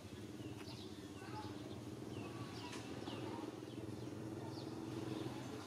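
Scattered short, high chirping calls, several sliding down in pitch, over a steady low drone.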